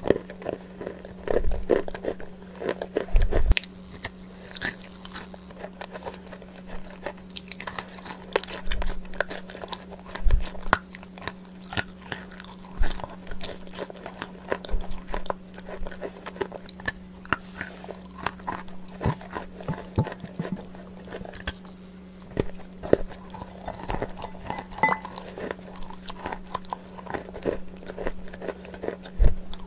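Close-miked crunchy eating: irregular sharp bites and crunches as food is chewed, with a steady low hum underneath.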